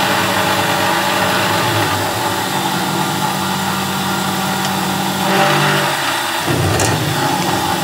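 BF28 benchtop milling machine running, a steady motor hum with a few steady tones. The sound shifts about five seconds in and changes again about six and a half seconds in.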